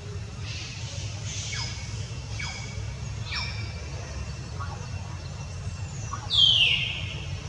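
A string of short, high-pitched animal calls, each falling quickly in pitch and coming about once a second, then a louder falling squeal near the end. A steady low rumble runs beneath them.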